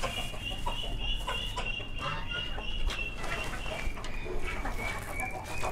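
Aseel hens clucking as they peck at millet, with short taps of beaks on the feed. A steady high-pitched tone runs in the background.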